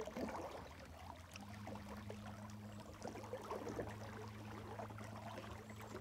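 Steady low drone of an aircraft flying overhead, coming in about a second and a half in, over faint crackling of water around the boat.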